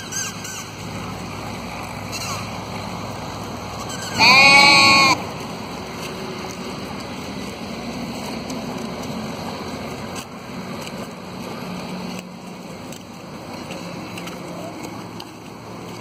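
A sheep bleats once, loudly, for about a second, a few seconds in, over a steady rushing background noise.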